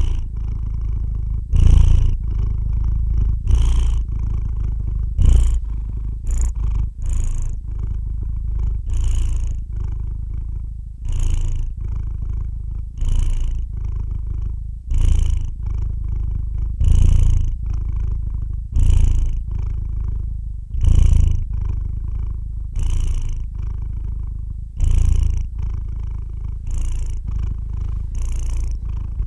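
Domestic cat purring close to the microphone: a continuous low rumble that swells and carries a breathy hiss about every two seconds, with each breath.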